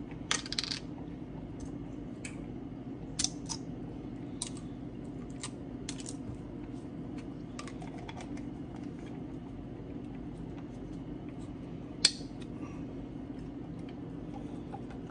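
Small sharp clicks and ticks, scattered every second or so, of fingers picking and twisting at the cap and seal of a Worcestershire sauce bottle to get it open, the loudest click about twelve seconds in. A steady low hum runs underneath.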